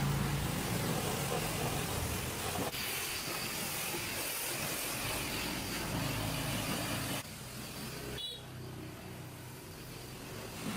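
An engine running steadily at idle, broken by abrupt changes in level about three and seven seconds in.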